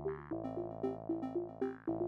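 Background synthesizer music with a steady pulse of repeated notes, about four a second, over sustained chords that change near the start and again near the end.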